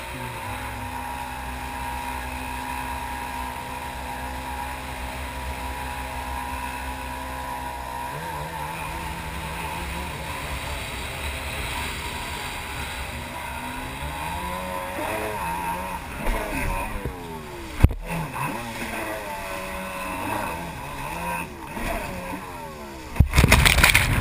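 Jet ski engine running steadily, its pitch shifting about a third of the way in and then rising and falling with the throttle. A single sharp knock comes partway through, and near the end a loud rush of water as spray covers the camera.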